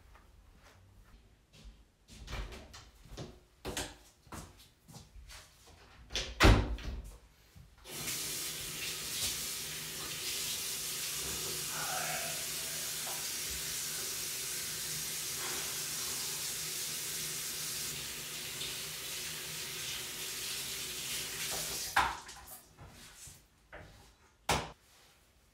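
Bathroom sink tap running steadily for about fourteen seconds while face and hands are washed under it, then turned off sharply. Before it come scattered knocks and one loud thump, the loudest sound; after it come a few clicks and knocks.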